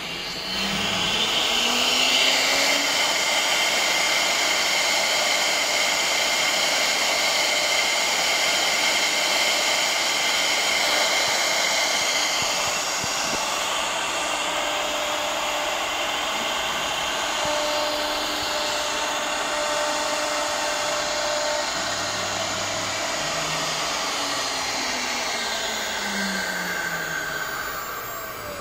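AccTek AKM1530 CNC router's spindle running with a steady high whine as the bit engraves a board. Its tone rises in pitch over the first few seconds and falls again near the end.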